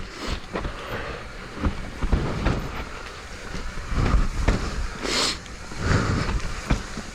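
Mountain bike descending a rough trail: tyres rumbling over dirt and rocks, the bike's chain and frame rattling, with frequent sharp knocks from bumps and a short hiss about five seconds in.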